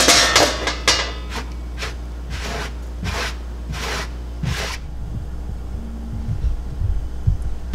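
A few clanks and knocks as a steel electrical panel cover is handled. Then four short swishes of a hand sweeping across a plywood workbench top, brushing it off, and a few low knocks near the end as the cover is laid back on the bench.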